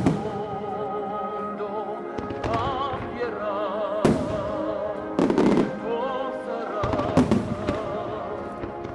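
Fireworks shells bursting in the sky, several sharp bangs a second or two apart, the loudest about four and five seconds in. Under them runs music with a singer's voice held in vibrato.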